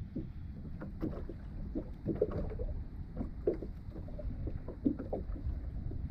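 Small waves lapping and slapping against a plastic fishing kayak's hull in short, irregular knocks, over a steady low rumble of wind on the microphone.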